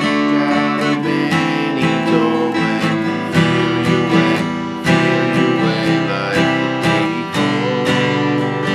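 Guitar strummed in a syncopated, funky rhythm, moving through a D, A minor, E minor, C chord progression that includes a measure of 5/4.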